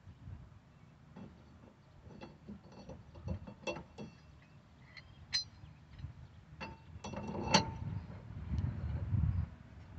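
Metal tools and parts being handled: irregular clicks, clinks and knocks with short metallic rings, busier and heavier from about seven seconds in.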